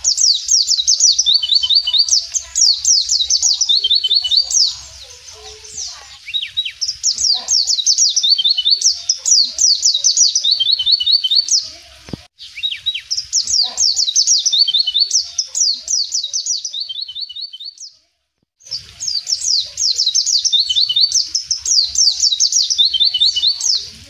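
White-eye (pleci) singing: fast twittering phrases of high, quickly repeated notes, each phrase a few seconds long with short pauses between. The sound cuts out completely for about half a second some three-quarters of the way through.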